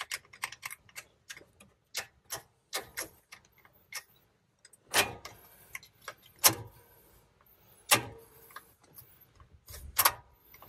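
Sharp metal clicks and light knocks from the M5OD transmission's shifter parts being fitted back together with their alignment pins, with about four louder clunks in the second half.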